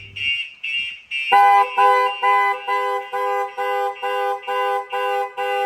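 Car alarm going off: the Starline alarm's siren beeping in quick pulses, about two or three a second, with the Nissan GT-R's horn joining about a second in and honking in step with it. The alarm has been triggered, as it is when the car is jacked up or takes a sharp shock.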